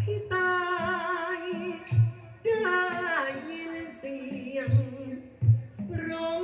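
Thai likay singing: one voice sustaining long, ornamented phrases with a wide vibrato, over a few low drum beats from the accompanying ensemble.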